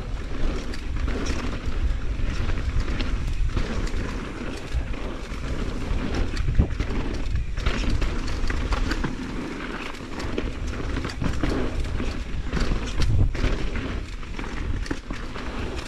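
Focus SAM² electric mountain bike riding fast down a dirt trail: tyres rolling over packed dirt and roots, with the bike rattling and knocking over bumps in frequent sharp clicks. Heavy rumble of wind buffeting the helmet-mounted camera underlies it.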